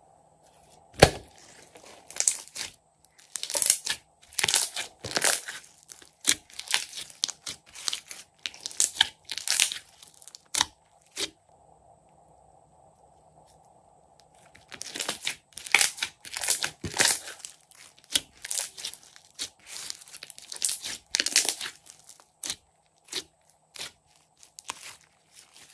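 Glossy slime being stretched, folded and pressed by hand, giving rapid wet crackling and popping as air pockets in it burst. There are two long runs of pops with a pause of a few seconds between them.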